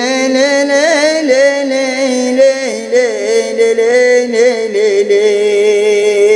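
Wordless singing in an Arabic folk style: one voice holding long notes and ornamenting them with slides and turns between pitches.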